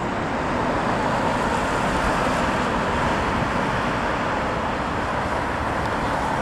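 Steady road traffic noise from vehicles passing on a busy road.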